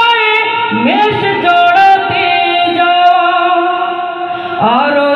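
A single high voice singing a Bengali Islamic song (gojol), holding long notes that slide up and down between phrases.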